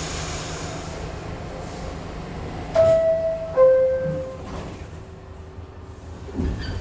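New York City subway car's door chime: a two-tone ding-dong, a higher note and then a lower one about three seconds in, the signal that the doors are about to close. Under it the stopped train's steady hum, with a knock near the end.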